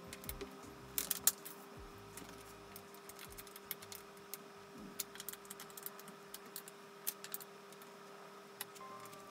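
Irregular small clicks and metallic taps of chair parts and a hand tool being handled while the armrest of a Nitori office chair is fastened on, over a faint steady hum.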